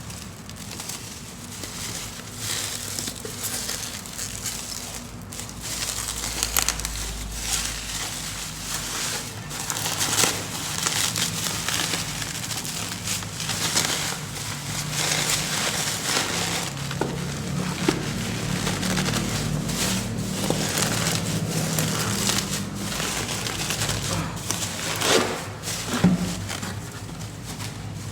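Parcel packaging being unwrapped by hand: plastic and wrapping crinkling and rustling, with frequent sharp crackles.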